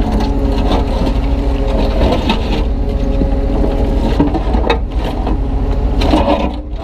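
Kubota U35-3 mini excavator's diesel engine running steadily under working load as the bucket scoops broken concrete. A sharp knock about two-thirds of the way in and a few more near the end are concrete chunks hitting the bucket.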